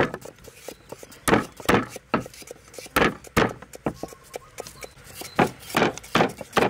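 Stone pestle pounding garlic cloves on a round wooden chopping board to crush them: about ten sharp knocks in groups of two or three, with short pauses between groups.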